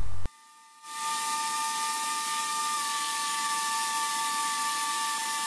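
Simulated dental drill sound from the VOXEL-MAN Dental simulator: a steady whine over a high hiss, starting about a second in, as the virtual drill polishes the prepared cavity. Just after the start a loud low hum cuts off.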